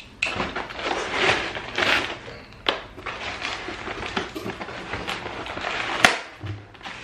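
Packing material and cardboard rustling and crinkling as hands dig through a shipping box, with several sharp cracks; the sharpest comes about six seconds in.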